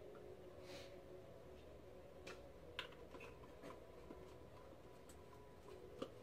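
Near silence with a few faint, sharp clicks and taps as a bottle of castor oil is handled and poured over a mixing bowl.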